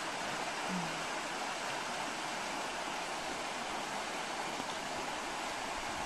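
Wümme river rapids: water rushing and churning over a line of rocks across the river, a steady, even rush.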